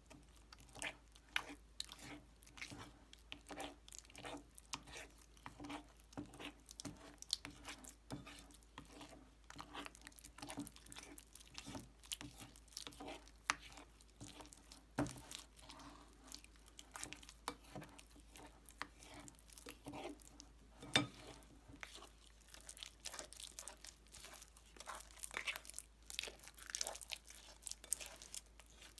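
White slime packed with polystyrene beads being squeezed and kneaded by hand: a dense, irregular run of crunchy crackles and small pops.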